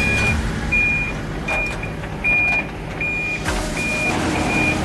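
Flatbed tow truck's warning beeper sounding a steady run of short high beeps, about seven, one every three quarters of a second, over the low running of the truck's engine while the bed is being drawn in. Two metallic clanks come through, about a second and a half and three and a half seconds in.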